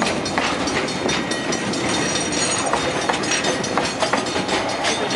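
Freight train of container wagons rolling past close by: a steady rumble of wheels on rail, broken by many irregular knocks and clanks from the wheels and wagons.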